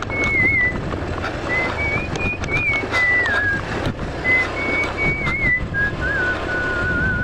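A whistled tune in short phrases of a single clear line, settling lower toward the end. Underneath is the steady low rumble of a scooter riding a rough dirt track, with scattered sharp knocks.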